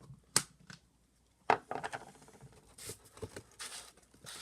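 Plastic scoop knocking and scraping as more G Fuel powder is scooped from the tub and tipped into the cup of water: two sharp knocks, then several short scraping, rustling sounds.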